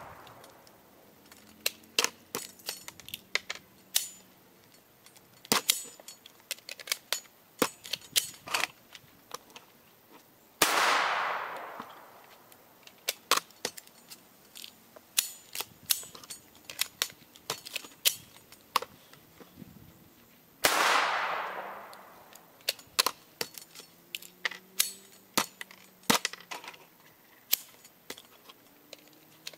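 AR-15-style rifle firing two single shots about ten seconds apart, each followed by a long fading echo. Between the shots come many small metallic clicks and clacks as the rifle's action is worked by hand, clearing rounds that fail to chamber in the hot, uncleaned rifle.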